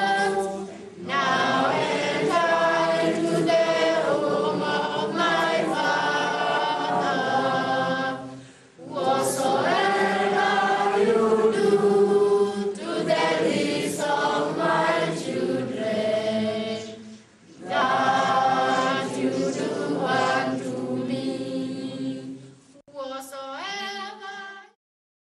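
Choir of children and youths singing unaccompanied, phrase after phrase with short pauses between; the song ends shortly before the end.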